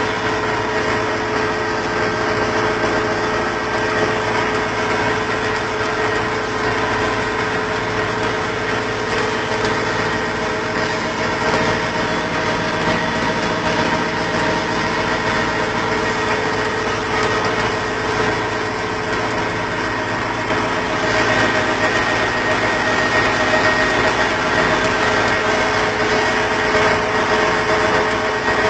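Engine of a farm machine running steadily while it pulls a ploughing and levelling implement, growing a little louder about three-quarters of the way through.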